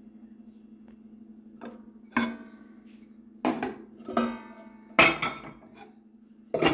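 Metal cookware and glass pot lids clinking and clattering as they are lifted off a stacked pot: about six sharp knocks, several ringing briefly.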